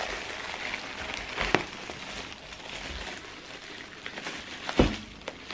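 Tissue paper rustling and crinkling as it is handled, with two sharp knocks, one about a second and a half in and a louder one near the end.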